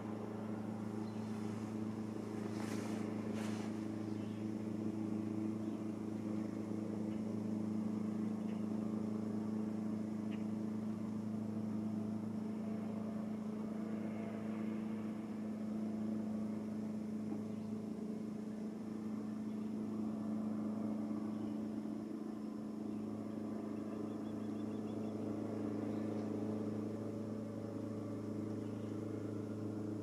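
A steady, low droning hum with an even pitch.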